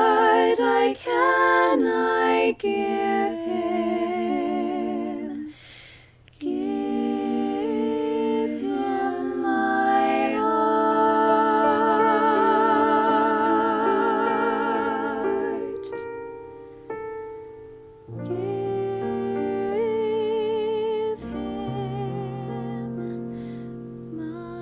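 A solo voice sings a Christmas carol, with vibrato on long held notes and short breaks between phrases. A lower accompaniment joins in near the end.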